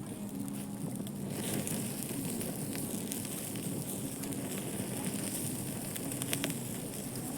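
Charcoal grill fire crackling, with scattered small pops over a steady hiss.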